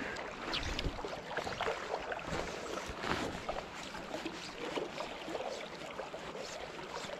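River water lapping and splashing close by, with scattered soft rustles and taps.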